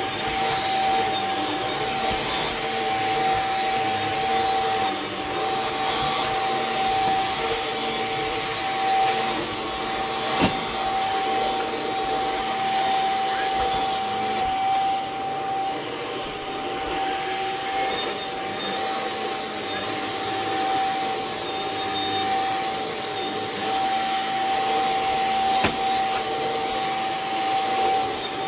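Vacuum cleaner running steadily while its floor head is pushed over carpet and rugs: an even motor whine with a constant tone. Two sharp clicks stand out, about ten seconds in and near the end.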